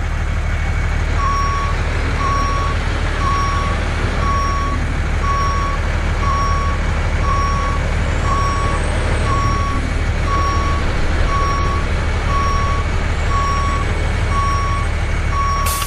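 Truck reversing: its engine runs steadily while a reversing alarm beeps about once a second, starting about a second in. Both stop together at the end.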